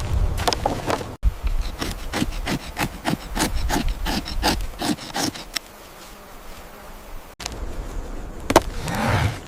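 A quick run of short scraping or rubbing strokes, about four a second, that stops about five and a half seconds in; a single loud knock near the end.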